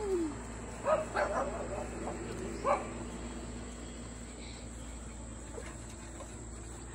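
A dog barking and yipping a few short times in the first three seconds, then falling quiet.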